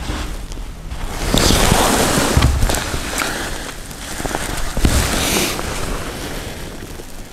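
Rustling and scraping of an old carpet being pulled back from the floor by hand, in two noisy bursts with low thumps of handling.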